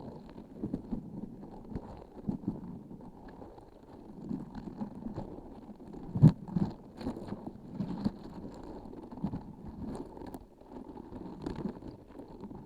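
A transparent sticky squishy object being squeezed and handled right at the microphone, giving irregular soft sticky squelches and faint crackles, with one sharper, louder click about six seconds in.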